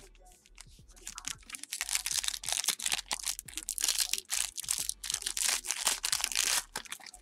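Foil wrapper of a 2017-18 Ascension basketball card pack crinkling and tearing as it is ripped open by hand. A few soft clicks at first, then dense crackling from about two seconds in until shortly before the end.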